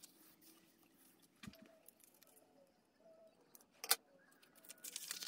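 Paper pages of a handmade junk journal being handled: soft rustling and light taps, with one sharp tap about four seconds in and louder rustling near the end.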